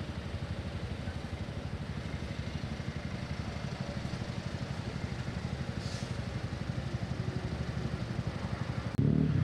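City road traffic: cars and engines running in slow traffic, a steady low rumble. Near the end a louder rumble comes in suddenly.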